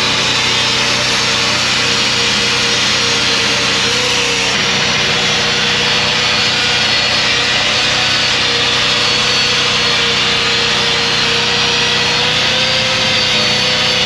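DeWalt angle grinder grinding on a semi-trailer's steel axle, a steady high whine over a loud grinding hiss, its pitch wavering slightly.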